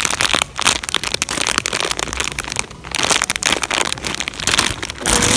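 Clear plastic bags around squishy toys crinkling and rustling as they are handled and squeezed.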